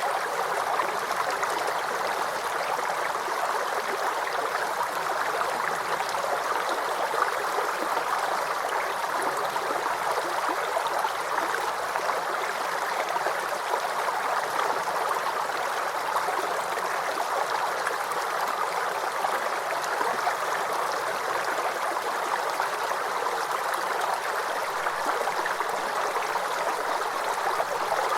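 Babbling forest creek: water running and gurgling over stones, a steady, even flow.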